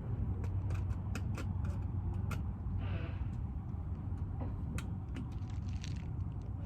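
Scattered small clicks and taps as the doorbell's mounting parts are handled and fitted, over a steady low rumble.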